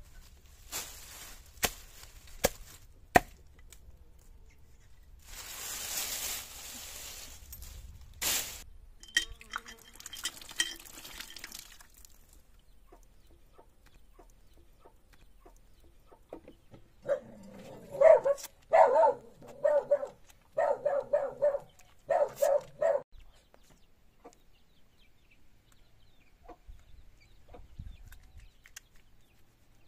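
A hatchet chopping kindling on a wooden stump, four sharp strokes, followed a few seconds later by a short rushing hiss. Past the middle, a chicken clucks loudly in a quick run of calls lasting about six seconds.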